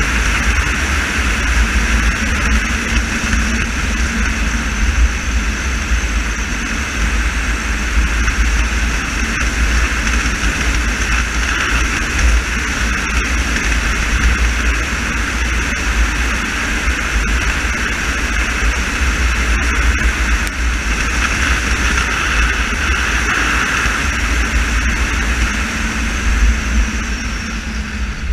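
A car driving at a steady pace: continuous tyre, wind and engine noise with a heavy low rumble and no clear revving.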